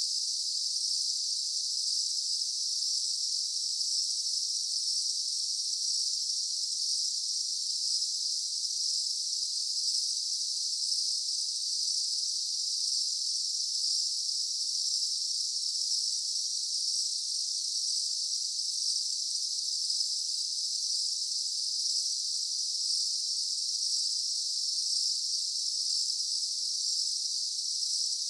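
Daytime insect chorus: a dense, steady, high-pitched buzzing drone of many insects calling together, unchanging throughout.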